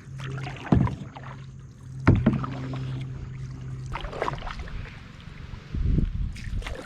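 Kayak on the water: paddle strokes splashing and knocking against the hull, with two sharp knocks about a second and a half apart. A steady low hum runs under the first few seconds.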